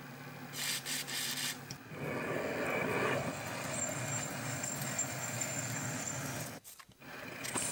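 A short hiss of cutting-lubricant spray from an aerosol can, then a drill press running as a 3D-printed stainless steel twist drill bores into aluminium plate, with a steady high whine over the cutting noise. The sound breaks off abruptly about a second before the end.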